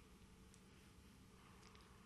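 Near silence: room tone, with a few faint brief ticks.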